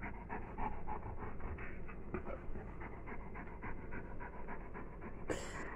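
German Shepherd panting close by, quick and rhythmic. A short burst of noise comes near the end.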